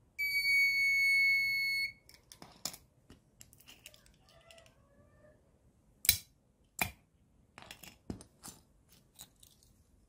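The project's piezo buzzer sounds one steady high beep lasting almost two seconds as an unregistered RFID tag is read: the access-denied alert. About six seconds in come two sharp clicks about a second apart as the relay switches the solenoid door lock for an authorised tag, followed by a few lighter clicks.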